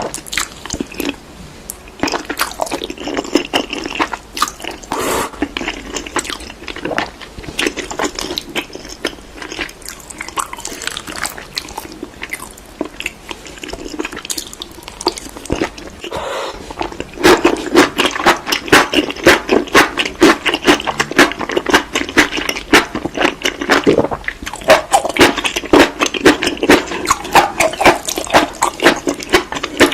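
Close-up wet chewing and crunching of seaweed, a dense run of quick crackles and smacking mouth sounds that grows louder and busier a little over halfway through.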